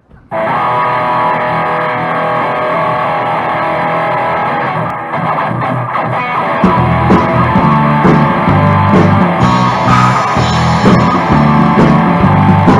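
Live rock band's instrumental intro: electric guitar chords ring out alone, then bass guitar and drum kit come in about halfway through with a steady rock beat.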